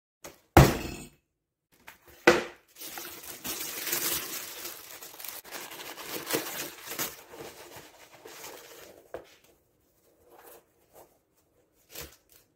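Tissue paper rustling and crinkling as new skate shoes are unwrapped from their cardboard shoebox, with two sharp knocks about half a second and two seconds in.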